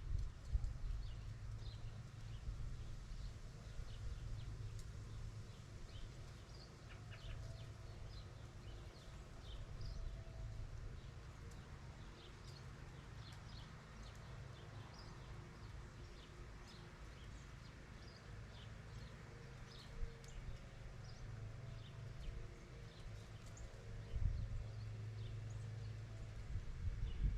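Outdoor autumn ambience: small birds give scattered short chirps, over a steady low rumble that swells briefly near the start and again near the end.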